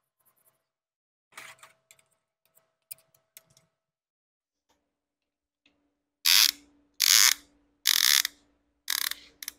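Ratcheting piston ring compressor being tightened around a piston, squeezing the rings flush before the piston goes into the bore. A few light clicks come first, then four short, loud ratcheting strokes about a second apart as the band is cinched down.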